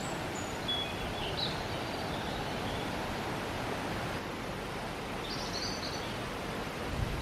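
Steady outdoor rushing noise with a few short, high bird chirps, in the first second or so and again around five seconds in.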